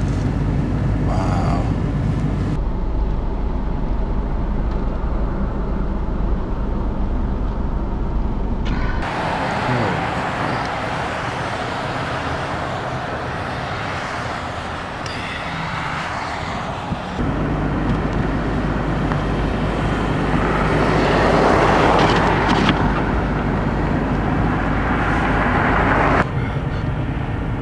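Steady vehicle and road noise, a continuous rumble that changes abruptly several times as the footage cuts between separate recordings.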